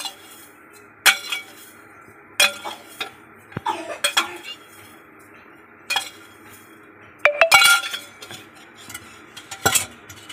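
Metal spoon clinking against an aluminium pot of milk while tea leaves are added and stirred in for chai. Sharp clinks every second or two, with a quick run of them about seven seconds in, over a steady faint background noise.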